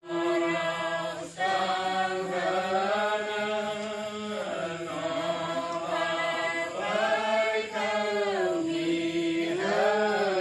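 A voice chanting devotional verses in long, held notes that rise and fall slowly in pitch, over a steady low hum.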